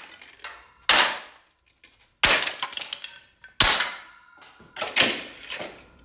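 Sledgehammer blows smashing the plastic housing of a coffee maker on a concrete floor. Four hard strikes about a second and a half apart, each followed by a brief clatter of breaking, scattering pieces.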